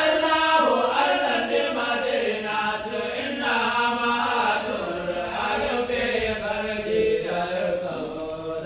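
A group of young men chanting Sufi dhikr together without accompaniment, in sustained melodic lines.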